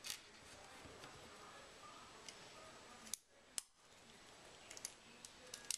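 Faint clicks and taps of small screws and a metal hand tool being handled against the quadcopter's frame plates, with two sharper clicks a little past the middle and a few light ticks near the end, over quiet room tone.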